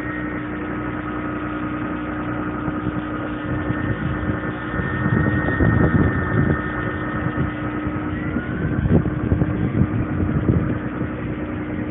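Small electric motors of a Syma Alloy Shark coaxial RC helicopter whining steadily under the whirr of its spinning rotors. The pitch steps up slightly about eight seconds in. Around six seconds in and again near ten seconds come spells of rushing air.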